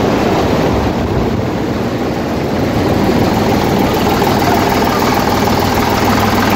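Eicher 485 HD tractor's three-cylinder diesel engine idling steadily.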